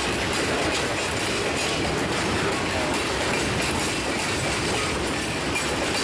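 Freight car wheels and trucks of a stone train rolling past close by on jointed track: a steady rumble and clatter of steel wheels on rail, with faint clicks and brief wheel squeal.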